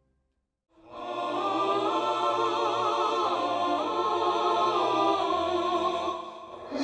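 Just under a second of silence, then music begins: voices singing with a strong vibrato over accompaniment, in a choral, operatic style. It dips briefly near the end and comes back louder.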